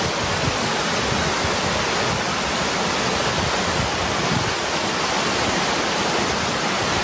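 Loud, steady rushing of floodwater, an unbroken roar of water with no separate splashes or drops.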